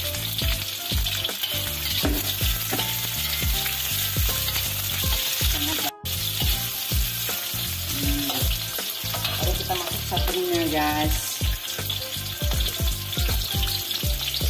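Sliced onions and bell peppers sizzling in hot oil in a wok, with a metal spatula scraping and knocking against the wok as they are stir-fried. The sizzle cuts out for a moment about six seconds in.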